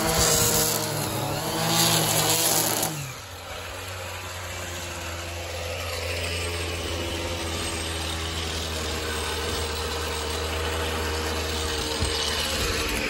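Gas string trimmer running at full throttle, then let back to idle about three seconds in. It idles steadily after that.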